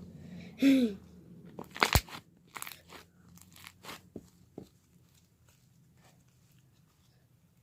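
Green butter slime with foam balls being squished and stretched by hand, the foam beads crunching and popping in a run of sharp clicks and crackles that thins out after about five seconds. A short falling squeak comes just before the first loud crunch.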